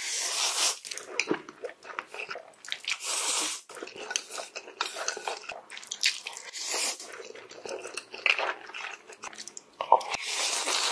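Close-miked slurping and chewing of black bean noodles (jjajangmyeon): a noisy slurp every few seconds with wet chewing and small clicks between.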